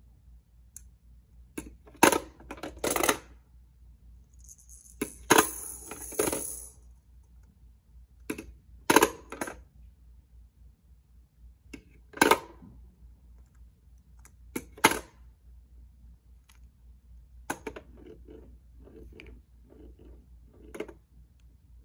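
Hard plastic toy balls (Fisher-Price Roll-a-Rounds) clacking against each other and the clear plastic dome as they are dropped one at a time into the top of a toy gumball machine. Sharp clacks come in small clusters every few seconds, with a short rattling jingle about five seconds in and lighter knocks near the end.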